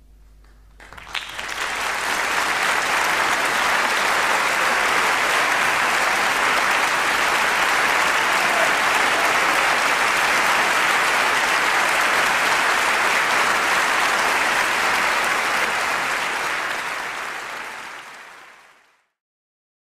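A large audience applauding at the end of a solo piano piece. The applause starts about a second in, just as the last faint piano chord dies away, holds steady, then fades out over the last few seconds and stops.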